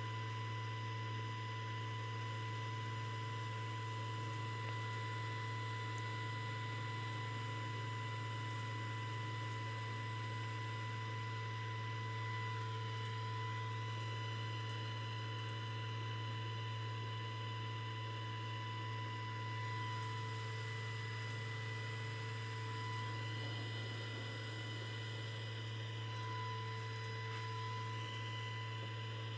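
Steady low electrical hum with a thin, constant high whine over it, unchanging throughout.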